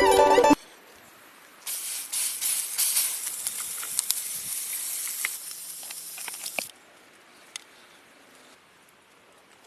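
Food sizzling in a hot pan: a loud hiss with scattered crackles that starts about two seconds in and cuts off abruptly near seven seconds.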